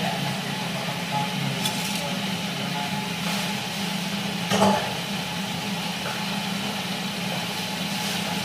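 A steady machine hum runs throughout. A few light knocks of kitchenware sound over it, the loudest about four and a half seconds in.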